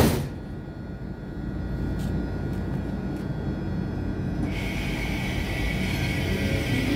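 Tram pulling away: a steady low rumble after a short bang at the very start, with a hiss coming in about four and a half seconds in and the electric motor's whine just starting to rise near the end as it accelerates.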